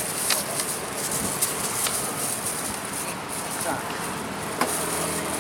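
Indistinct background chatter of a crowd over a steady high hiss, with scattered short clicks and taps.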